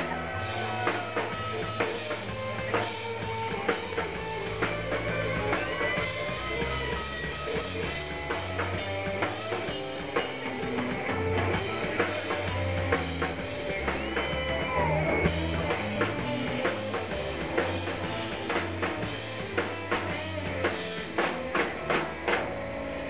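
A band playing a live blues shuffle: a lead electric guitar with bent notes over a drum kit. The drum hits come thicker and faster near the end.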